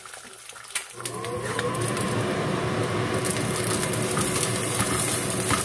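Rice stir-frying in a wok, starting about a second in: a steady sizzle with a wooden spatula scraping and turning the rice and an occasional light knock, over a steady low hum.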